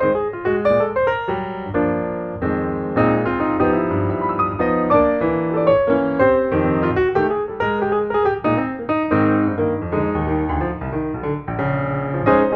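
Piano music: a lively run of many quick notes, each struck and fading.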